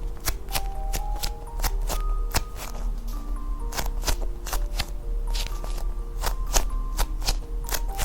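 Background music-box style melody, single held notes stepping up and down, with sharp clicks and taps several times a second over it.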